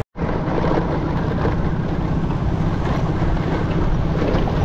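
Motorbike engine running steadily at riding speed, mixed with road and wind noise; the sound drops out for a split second at the very start.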